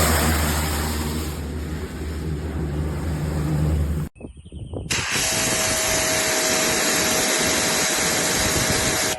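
Gas pressure washer's engine running under the hiss of the water spray; the sound cuts off abruptly about four seconds in. After a short gap, a loud, steady hiss of spray with a faint steady whine takes over.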